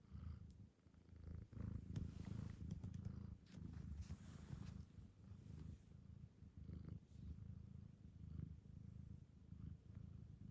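Domestic cat purring steadily and close up, a low continuous rumble, with a few soft rustles in the first half.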